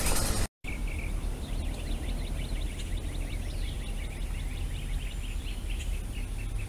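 Birds chirping in quick repeated notes over a steady low rumble of outdoor background noise.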